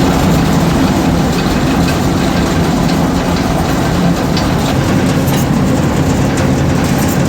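Maize thresher running: a loud, steady mechanical drone with a low hum and a rattle of light clicks over it.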